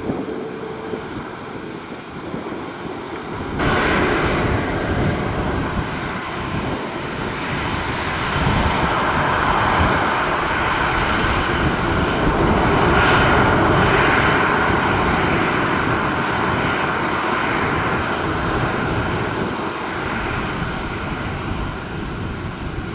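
Boeing E-6 Mercury's four CFM56 turbofan engines, a steady jet rush that jumps up suddenly about three and a half seconds in and stays loud.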